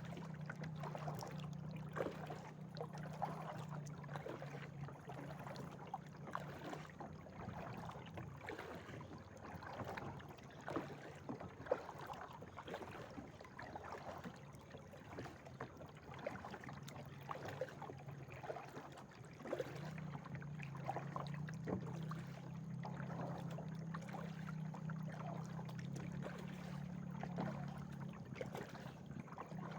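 Kayak paddle dipping into the water, with irregular splashes and drips from the blade. A steady low hum is heard at the start and again from about two-thirds of the way through.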